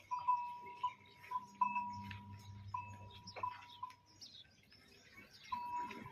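A small metal bell ringing repeatedly, one clear tone struck again and again at uneven intervals, like a bell on a cow's neck swinging as the animal moves. It goes quiet about four seconds in and starts ringing again near the end.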